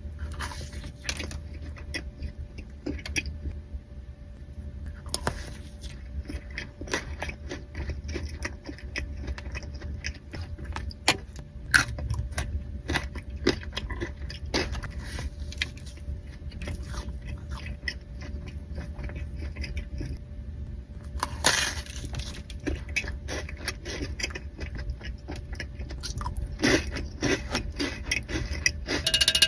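Close-miked chewing and biting of donuts: many short wet clicks and crunches, thicker in a few clusters, over a low steady hum.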